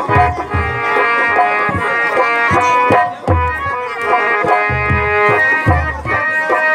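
Live music accompanying a Ramleela scene: a reed instrument, typical of a harmonium, holds steady chords over hand-drum strokes, with deep drum thuds about once a second.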